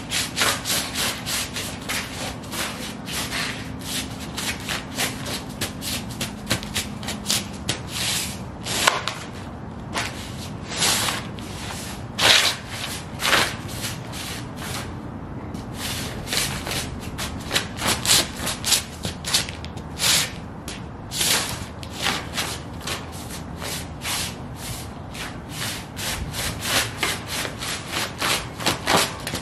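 Sheepskin UGG boots stepping and shuffling on loose magazine pages over a concrete floor: a fast, continuous run of paper crackling and scraping, with a few louder steps.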